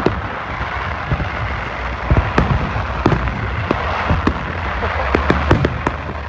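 Fireworks going off: an irregular string of sharp bangs and pops over a continuous crackle and a low rumble.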